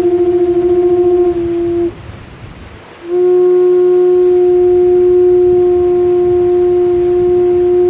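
A horn blown in two long, steady, single-pitched notes: the first ends about two seconds in, and after about a second's pause the second is held for about five seconds.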